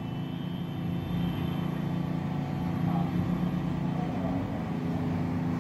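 Steady low mechanical hum running in the background.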